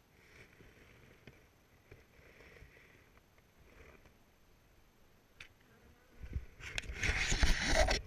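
Faint handling sounds, then about six seconds in a loud burst of rustling and scraping that lasts about two seconds: a beekeeping suit and gloves brushing close to the camera while wooden frames are worked in the hive box.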